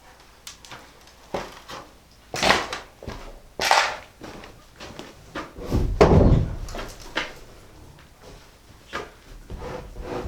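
Knocks and bangs from a large, heavy object being shifted, with the heaviest thud about six seconds in and a short low rumble after it.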